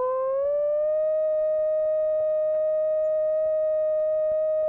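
Test tone from a sound generator, rising in pitch over about the first second and then holding steady. It is sweeping through the pitch at which a Helmholtz resonator begins to resonate.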